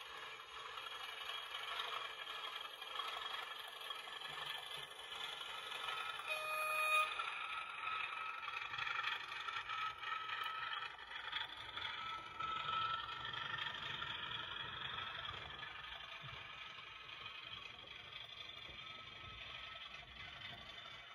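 OO gauge model diesel locomotive running slowly and pulling coal hopper wagons along the track, a steady mechanical running sound with faint wavering tones. A brief high tone about six and a half seconds in is the loudest moment.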